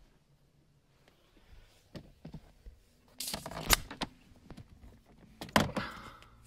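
Handling and movement noise inside a car as someone climbs down into the footwell: scattered light clicks and knocks, with two louder rustling, scraping rushes about three seconds in and again near five and a half seconds.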